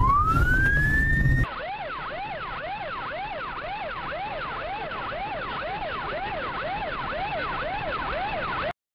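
Police car siren: a tone winding up over engine and road noise for the first second and a half, then a fast yelp, about two rising-and-falling sweeps a second, that cuts off suddenly near the end.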